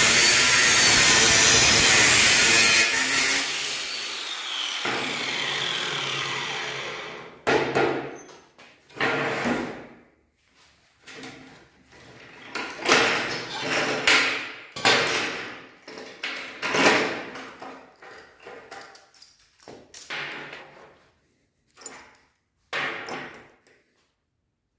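Workshop tool noise: a power tool runs loudly for about seven seconds, then a string of short, irregular strokes follows, each under a second long, until near the end.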